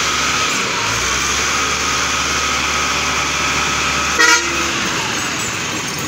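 Heavy diesel engine running steadily, as of a Caterpillar 916 wheel loader, with a short vehicle-horn toot about four seconds in.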